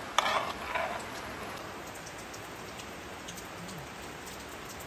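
Heavy rain falling steadily, with a brief louder sound in the first second.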